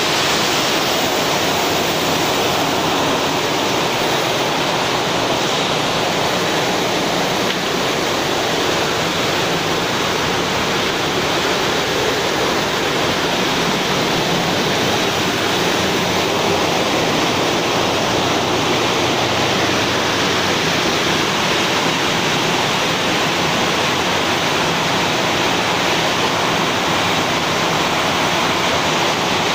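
Steady, loud rushing hiss with no rhythm or change, the background din of a fish-processing plant, like running water.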